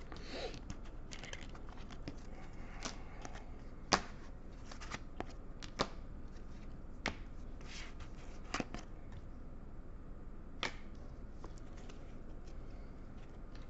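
Rigid plastic toploader card holders clicking and sliding against each other and the tabletop as they are picked up and gathered into a stack, with scattered sharp clicks, the loudest about four seconds in.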